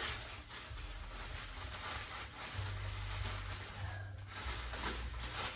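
Packaging rustling and crinkling in quick, irregular bursts as a statue's spare head sculpt is taken out and unwrapped.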